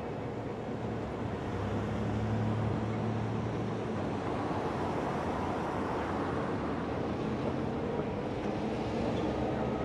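EMD GP9 diesel locomotive running with a steady low engine drone as it pulls empty tank cars across a steel trestle, with the rolling rumble of the cars' wheels on the bridge.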